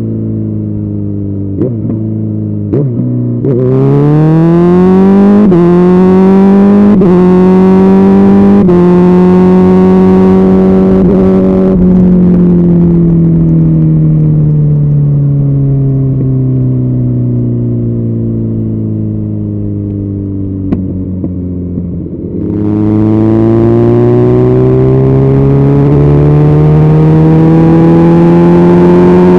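Kawasaki Z900 inline-four engine through an IXIL aftermarket exhaust. About three and a half seconds in it accelerates hard, with three quick-shifted upshifts roughly a second and a half apart, each a short dip in pitch. It holds a steady note, winds down slowly off the throttle for about ten seconds, then pulls up again in pitch near the end.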